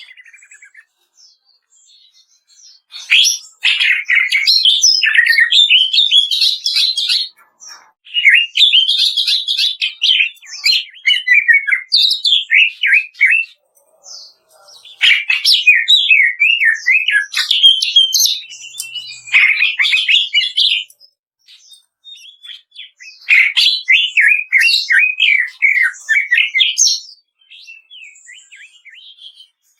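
Greater green leafbird (cucak ijo) singing its rapid 'kretekan' song: four long bursts of fast, varied chattering notes with short pauses between them.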